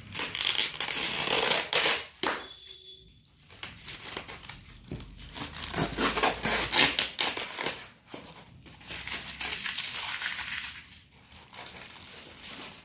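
Packing material round a ceiling fan's motor unit being crinkled and torn off by hand, in irregular spells of rustling with a few short pauses.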